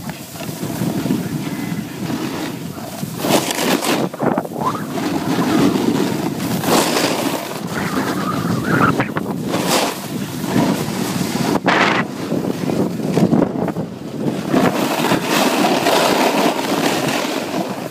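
Wind buffeting a phone's microphone: a steady rumble with several louder rushes.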